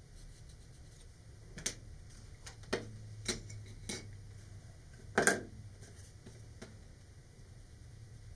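A few light clicks and knocks from cardboard model-rocket body tubes being handled, tapping against each other and set down on a cutting mat; the loudest knock comes about five seconds in.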